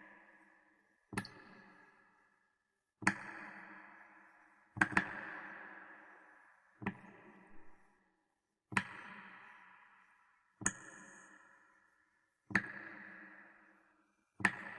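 A ringing ping struck about every two seconds, eight times, each one sharp at the start and fading over a second or so.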